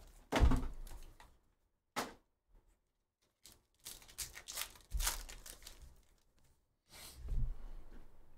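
Foil trading-card pack wrapper crinkled and torn open by hand, in several bursts of crackling with soft bumps of handling and a sharp snap about two seconds in.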